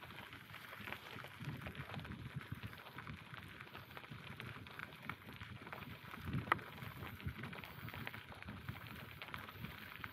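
Bicycle rolling along a forest path: a steady crackle of tyre noise and small rattles, with one sharp knock about six and a half seconds in.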